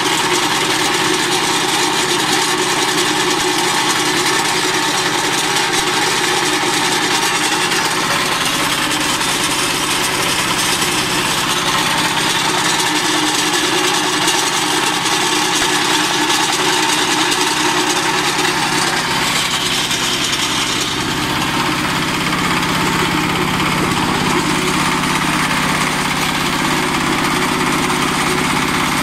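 Mini stone crusher running, belt-driven by a small single-cylinder diesel engine, with a rock being broken in its toothed jaws. The steady machine noise turns deeper about two-thirds of the way through.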